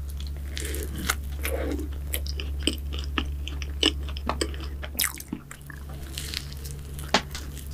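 Close-miked bites and chewing of a cookie choux pastry, its crisp crackly top crunching in many sharp, irregular crackles. A steady low hum sits underneath and drops about five seconds in.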